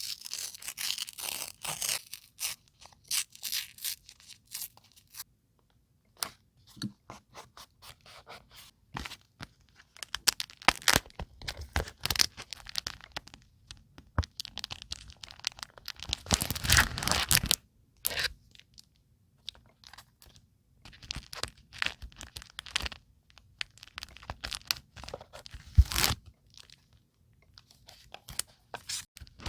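Paper and craft supplies being handled at close range: irregular rustles and scratchy strokes of paper with sharp taps and clicks between short pauses, a longer stretch of rustling about halfway through and a sharp tap near the end.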